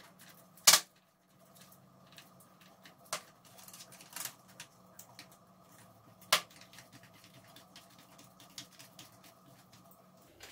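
Small metal clicks and taps of hand tools on a Paslode IM350 framing nail gun being reassembled, with a screwdriver at the screws in the top of the gun. A few sharper clicks stand out, the loudest about a second in and others near three, four and six seconds, over a faint steady hum.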